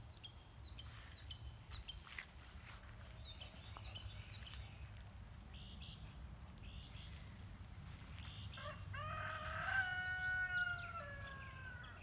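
A rooster crows once near the end, one long call of about two and a half seconds that falls off at the end. Before it, a small songbird repeats quick, high, falling chirps for the first few seconds.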